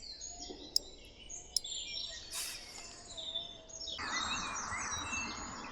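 Small birds chirping and singing in the background, with two sharp clicks in the first two seconds and a brief rush of noise about two and a half seconds in.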